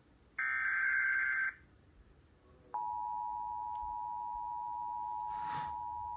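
Emergency Alert System tones over a television broadcast. About a second of harsh, buzzing SAME header data comes first. After a short pause, the steady two-tone EAS attention signal begins about three seconds in and holds.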